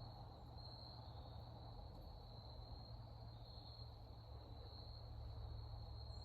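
Faint, steady chorus of insects, crickets or katydids, making a continuous high-pitched trill that swells and fades a little, over a low steady hum.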